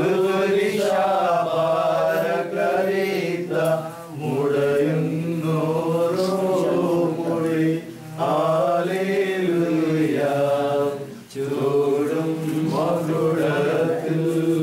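Male voices chanting an Orthodox liturgical hymn: long held notes that bend slowly up and down, in phrases of about four seconds with brief breaks between them.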